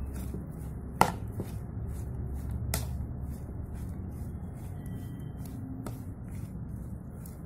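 A metal spoon stirring coarsely ground green chillies and spices in a ceramic bowl: soft scraping with a few sharp clicks of spoon on bowl, the loudest about a second in.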